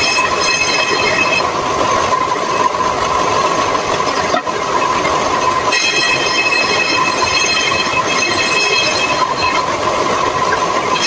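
Bench-mounted table saw running with a steady high whine as boards are fed through it to be cut. The ringing tone of the blade fades into a rougher noise from about a second and a half in and returns about six seconds in.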